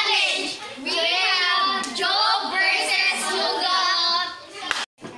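Girls singing together in high voices, in phrases of about a second each, cut off briefly near the end.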